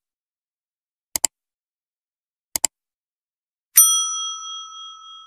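Subscribe-animation sound effects: two quick double clicks as the cursor presses the buttons, then a bright notification-bell ding about four seconds in that rings on and slowly fades.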